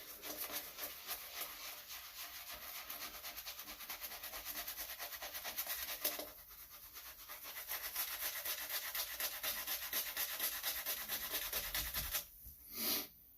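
Rubberset 803 shaving brush scrubbing lather onto a shaved scalp: quick, even bristle strokes, several a second, with a short pause about six seconds in. The strokes stop near the end.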